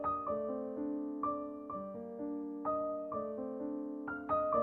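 Background piano music: a slow, gentle tune of single notes and chords, each struck and left to ring and fade, about two a second.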